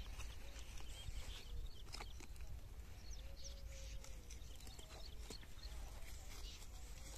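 Light rustling and small clicks of a woven plastic sack of onions being tied shut by hand, under faint distant animal calls.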